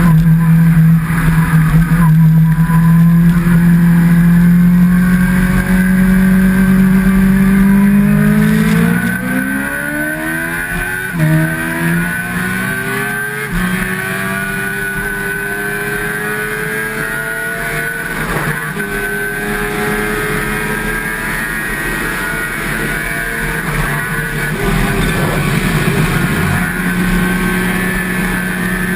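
Kawasaki H2's supercharged inline-four engine running under way: it holds a low steady note, then its pitch climbs in steps over several seconds about a third of the way in as it gets quieter, holds a higher steady note, and settles back toward the low note near the end.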